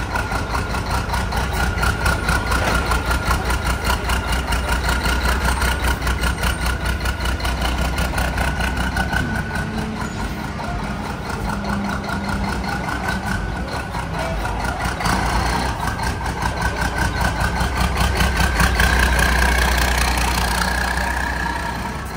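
Formula Truck racing truck's diesel engine idling with a steady, rapid low pulse while the truck is moved slowly at low speed.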